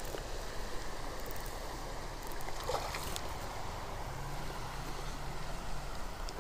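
Steady rush of river water running over a shallow, rocky stretch of river, with a faint low hum joining about halfway through.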